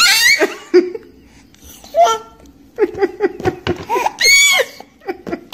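Baby laughing and squealing, with a high-pitched shriek at the start and another about four seconds in.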